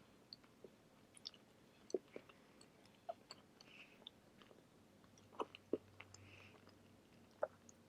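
A person chewing a barbacoa burrito close to the microphone: faint, scattered wet mouth clicks and smacks, with no crunch.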